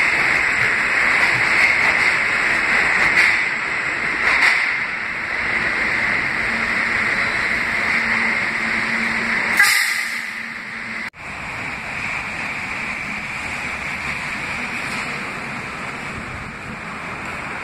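R160 subway train running through an underground station: a steady rumble and hiss of wheels on rail, with a low steady hum coming in as it slows and a short sharp burst just before ten seconds in. About eleven seconds in, the sound switches abruptly to a quieter, even outdoor wash.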